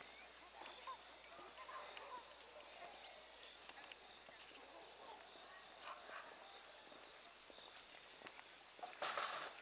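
Quiet rural evening ambience: a faint, rapid, steady run of high chirps, with scattered faint distant animal calls. A brief rush of noise near the end.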